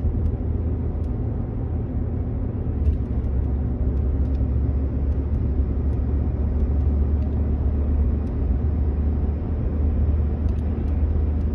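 Pickup truck driving at road speed, heard from inside the cab: a steady low rumble of tyres and engine.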